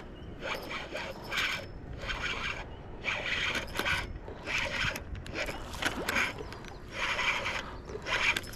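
Fishing reel being cranked to bring in a hooked fish: a rasping, scraping whir that comes in regular pulses, a little more than one a second, one for each turn of the handle.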